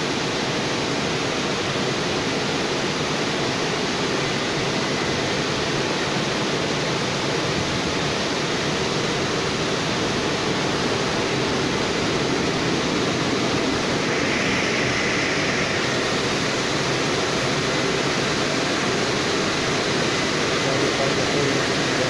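WashTec rollover car-wash gantry in its drying stage: its dryer blowers send a steady rush of air over the car as the gantry travels along it.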